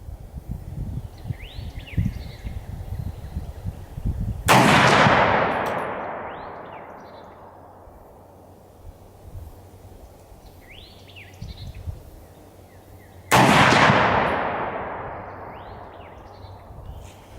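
Two rifle shots from a Romanian PSL firing 7.62x54R steel-case rounds, about nine seconds apart. Each is a sudden crack followed by a long echo that fades over about three seconds. Birds chirp faintly between the shots.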